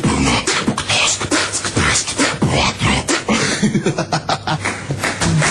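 Beatboxing: a person making rapid percussive mouth sounds, clicks, snares and hissing bursts, mixed with short sung or hummed pitches.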